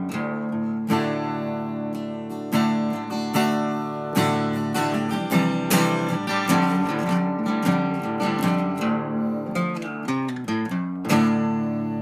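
Acoustic guitar music, strummed and picked in a steady rhythm, with a final chord struck near the end and left ringing.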